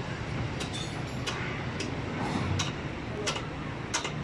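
Construction-site background noise: a steady low rumble with scattered sharp knocks every second or so.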